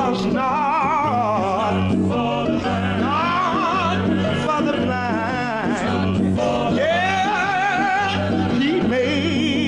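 Male gospel vocal group singing: a lead voice with wide vibrato over sustained backing harmonies and a held bass line.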